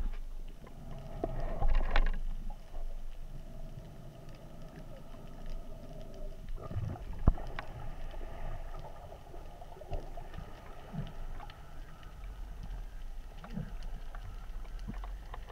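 Underwater sound through an action camera's waterproof housing: a muffled low rumble with a faint steady hum and scattered small clicks. There is a louder rush about two seconds in and a single sharp click about seven seconds in.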